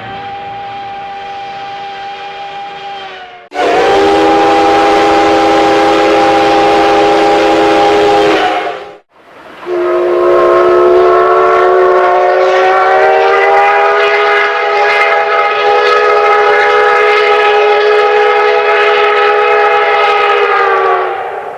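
Three separate Japanese steam locomotive whistle blasts, cut together one after another. Each sounds a chord of several tones at once. A softer blast of about three seconds is followed by a loud blast of about five seconds with a steamy hiss, then a long blast of about eleven seconds whose pitch rises slightly as it opens and sags as it dies away.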